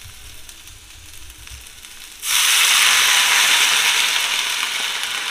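Chopped onion and capsicum sizzle quietly in oil in a pan. About two seconds in, water is poured from a steel tumbler into the hot pan and sets off a sudden loud hiss that slowly dies down.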